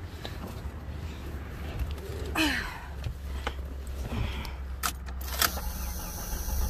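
Keys jangling and sharp clicks at the ignition of an old, well-used chore Jeep, with a creak falling in pitch about two and a half seconds in; near the end a steady rushing noise sets in as the start attempt begins.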